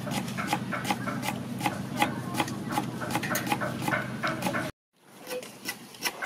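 A kitchen knife chopping lemongrass stalks on a round wooden chopping board: quick, even chops of about four a second, each a sharp knock. The chopping breaks off for a moment about three-quarters of the way in, then goes on.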